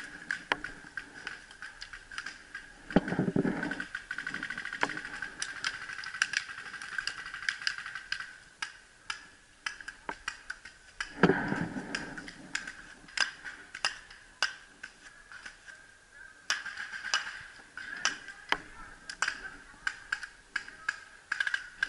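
Paintball markers firing in irregular pops and clicks, some in quick runs. Two louder, duller thumps come about three seconds in and again about eleven seconds in.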